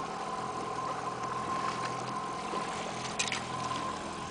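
Mercury outboard motor idling steadily, with a brief splash about three seconds in as a fish thrashes in the landing net.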